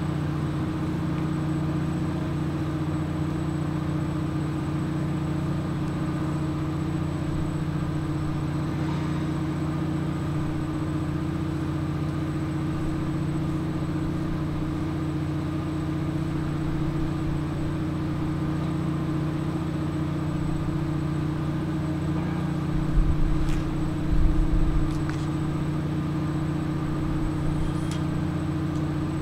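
A steady low engine hum, with a couple of short low thumps a little over twenty seconds in.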